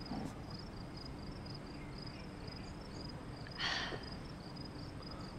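Crickets chirping in a steady, regular high-pitched pulse, with a short swishing noise about three and a half seconds in.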